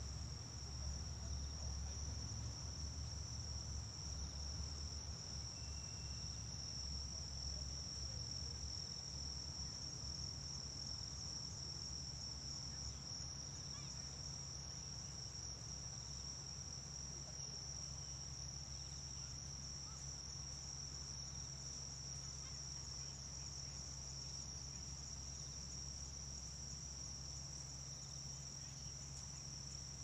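Insects in the grass trilling without a break at one high, steady pitch. Beneath them runs a low rumble, stronger in the first few seconds.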